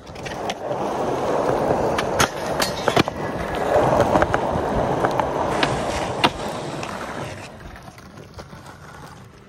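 Skateboard wheels rolling over rough concrete while the skater pushes, with several sharp clicks along the way. The rolling sound fades away near the end.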